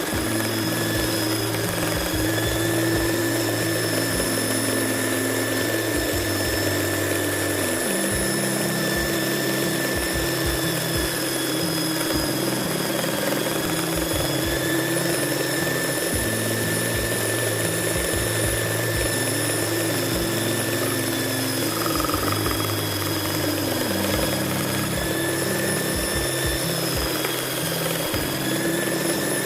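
Modern M-2561 1200-watt electric belt sander running steadily, a constant high whine over a low hum.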